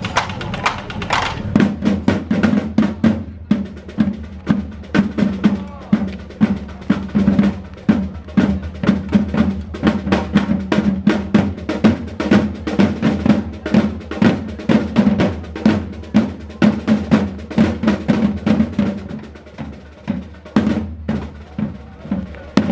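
Parade side drums of a costumed flag-wavers' drum corps playing a fast, steady rhythm of rapid strokes, starting about a second and a half in.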